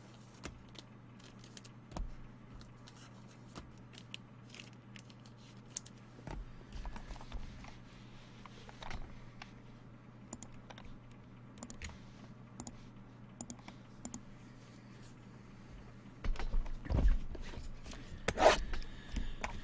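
Trading cards and their packaging being handled: scattered light clicks and scrapes, then louder crinkling and rustling from about three-quarters of the way in, over a low steady hum.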